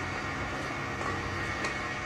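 A machine running steadily: an even mechanical hum and whirr with a constant pitch.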